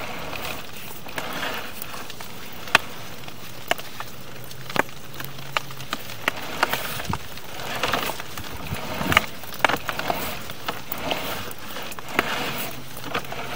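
Sewer inspection camera and its push cable being pulled back through the pipe: a steady hiss with scattered sharp clicks and knocks and a few scraping swells, and a low hum for about two seconds around four seconds in.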